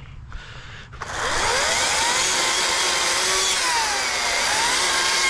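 Ryobi 40-volt cordless electric chainsaw starting up about a second in and cutting into a small tree trunk. Its motor whine dips in pitch and rises again as the chain bites.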